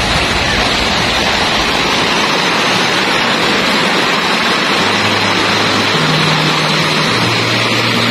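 Shallow rocky river running fast over boulders and small rapids: a steady, loud rush of water. Low background-music bass notes come in about halfway through.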